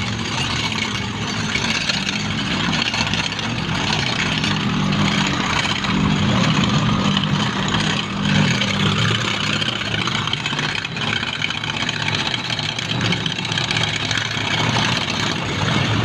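A motor vehicle engine running steadily at low revs, a low tone that grows a little stronger about a third of the way in and then eases, over steady street-traffic noise.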